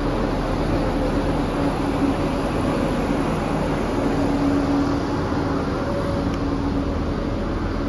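Northern diesel multiple unit's engines running steadily at the platform, a constant low hum over a rumbling background.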